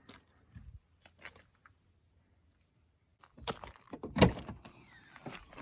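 A car door on the Lexus LX470 SUV shut with one loud thud about four seconds in, amid handling and rustling noises; a few light clicks come before it.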